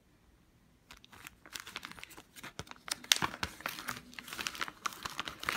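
Clear plastic sleeve holding a pair of baby socks crinkling as it is handled, with irregular crackles starting about a second in.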